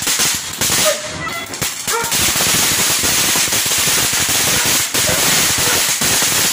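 Ground fountain firework spraying sparks: a loud, steady hiss with dense, rapid crackling throughout.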